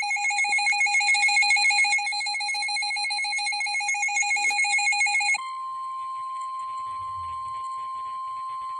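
Weather-radio alert tones ahead of a severe thunderstorm warning: a warbling, ringing electronic alert for about five seconds, then the steady single-pitch NOAA Weather Radio warning alarm tone, which cuts off sharply near the end.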